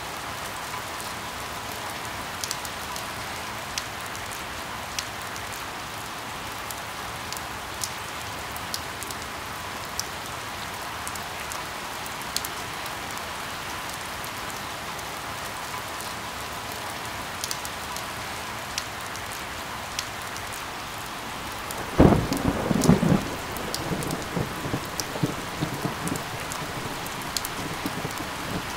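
Steady rain with scattered sharp drip ticks. About three-quarters of the way in a sudden thunderclap breaks in, then rumbles on unevenly for several seconds.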